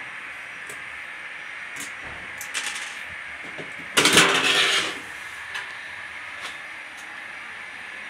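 A hand rubbing and scraping against a washing machine's metal back panel: a few light clicks, then a loud scrape lasting just under a second about halfway through, over a steady hiss.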